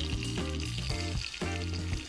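Background music with a steady bass line, over food sizzling and frying in a pan on a small wood-burning camp stove.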